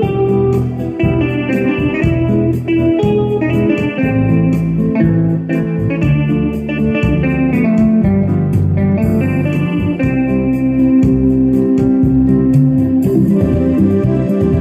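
Electronic keyboard playing a melody over sustained bass notes and a steady beat.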